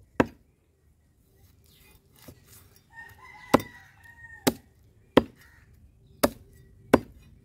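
Heavy cleaver chopping through a large common carp on a wooden block: about six sharp, separate chops at irregular intervals. A rooster crows once in the background about three seconds in.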